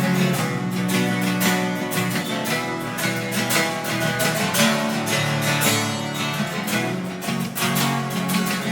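Acoustic guitar strummed in a steady rhythm with no singing: an instrumental break between verses of a song.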